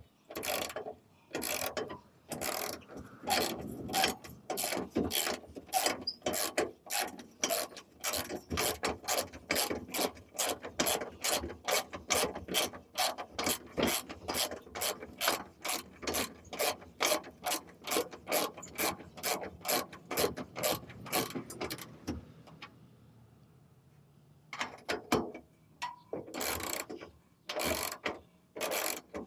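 Craftsman socket ratchet clicking steadily, about three pawl clicks a second, as a bolt on a wheelbarrow handle is worked. The clicking stops for a couple of seconds near the end, then starts again.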